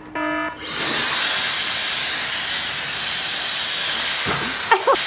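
A handheld blow dryer switches on about half a second in, after a short electronic beep, and runs steadily: a loud rush of blown air drying a bathed cat's wet fur.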